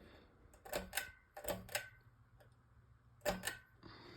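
Ceiling fan running on low with a faint steady hum, while sharp clicks come in three quick pairs.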